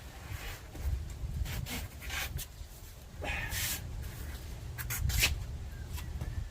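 A jack being worked to raise a skid plate into place under a van: irregular clicks and knocks, with two short scraping noises around the middle, over a low rumble.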